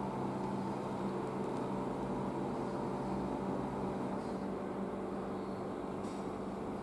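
A steady low machine hum with several fixed low tones.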